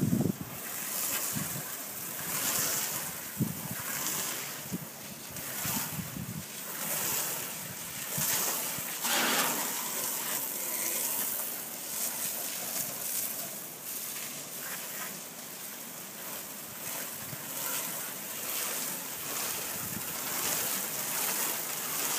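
Low-pressure spray hissing steadily as it strikes wooden clapboard siding and runs onto a corrugated metal roof, with some low buffeting in the first few seconds.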